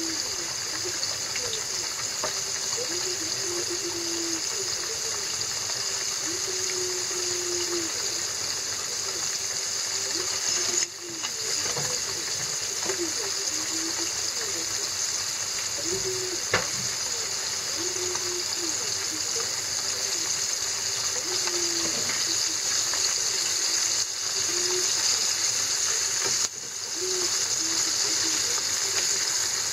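Floured split horse mackerel frying in shallow oil in a frying pan, a steady high sizzle that dips briefly twice. A single sharp click about halfway through.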